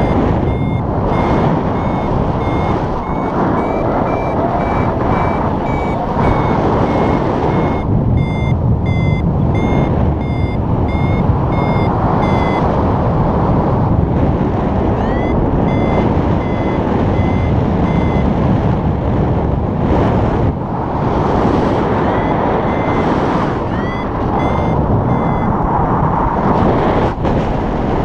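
Paraglider variometer beeping: runs of quick, high, evenly spaced beeps, several opening with a rising chirp, signalling that the glider is climbing in lift. The beeping breaks off a few times and starts again, over loud wind rushing past the microphone.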